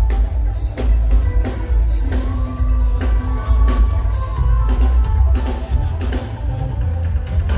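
Live reggae band playing, with a heavy bass line and drum kit carrying the beat and a long held note in the middle. Recorded from within the audience, so the bass dominates.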